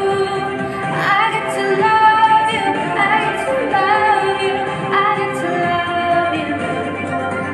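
A woman singing a contemporary Christian pop song, with the song's music playing behind her voice.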